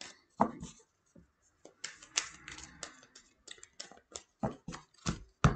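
A deck of oracle cards being shuffled by hand: a quick, irregular run of soft card slaps and rustles, with the loudest slaps near the end.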